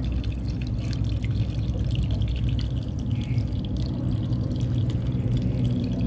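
Two streams of water from plastic tubes splashing and trickling into a water-filled plastic bottle basin of a small recirculating fountain, with many small drip-like splashes, over a steady low hum.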